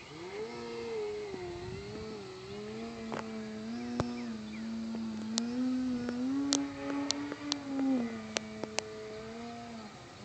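Motor and propeller of a 64-inch Extreme Flight MXS radio-controlled aerobatic plane droning in flight, its pitch rising and falling with the throttle and dropping about eight seconds in. A handful of sharp ticks come through the middle.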